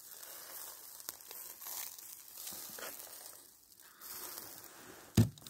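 Meat sizzling and fat crackling in a wire grill basket over hot charcoal, a faint hiss with scattered small pops. About five seconds in comes a single sharp knock.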